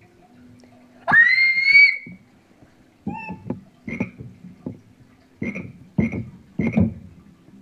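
Electronic keyboard playing novelty sound-effect samples: a rising whistle-like sweep about a second in, then a string of short croaking notes, like a frog.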